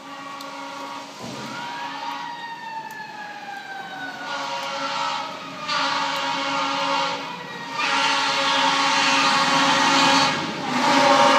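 Fire ladder truck approaching with its Federal Q mechanical siren: the siren winds up about a second in and then coasts slowly down in pitch, followed by a series of air horn blasts, getting louder as the truck nears.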